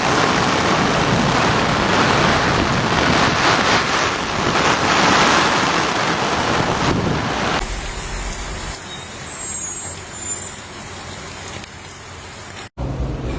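Loud, steady rush of heavy rain and water for about seven and a half seconds. It cuts to a quieter, duller background noise, and the sound drops out for a moment near the end.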